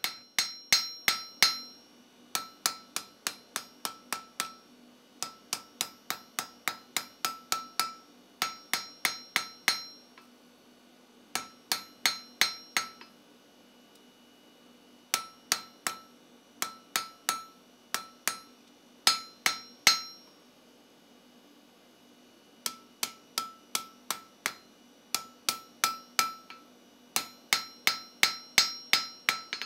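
Hand hammer striking a red-hot steel bar on an anvil, drawing out a taper, in runs of quick blows, each leaving a short metallic ring, with brief pauses between runs.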